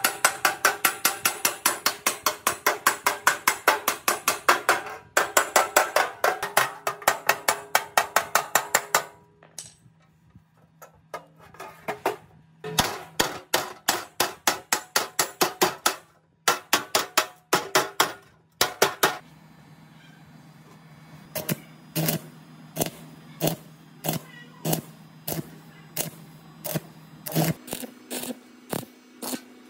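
Hammer blows on a sheet-steel belt cover, quick ringing strikes about four a second for the first nine seconds, then in bursts with short pauses. From about two-thirds of the way in, slower, evenly spaced knocks come about one and a half a second over a steady low hum.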